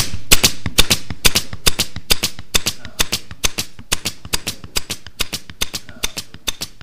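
Pneumatic upholstery stapler firing over and over, a rapid run of sharp clicks at about four a second, driving staples through the cover fabric into the wooden chair frame.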